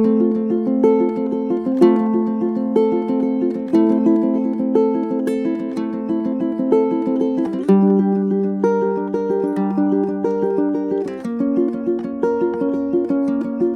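Ukulele with a torrefied spruce top and mahogany back and sides, played solo as a repeating picked note pattern. The chord changes about eight seconds in and again about eleven seconds in.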